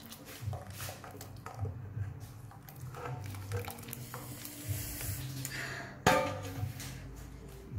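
Dough balls sliding out of a stainless-steel bowl into a pot of boiling water, with small clinks of metal on metal and one sharp, ringing metal clank about six seconds in as the bowl knocks against the pot.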